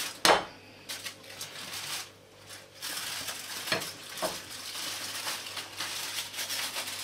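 Metal baking tray knocking against a glass bowl as roasted peppers are slid off it, with a sharp knock just after the start and lighter knocks later. The foil lining rustles in a steady hiss through the second half as it slides into the bowl with the peppers.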